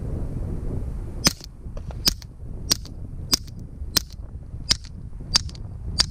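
Eight suppressed 9mm gunshots through a Rugged Obsidian 9 silencer, fired semi-automatically at a steady pace of about one every two-thirds of a second, starting about a second in. Each shot is a short, sharp crack.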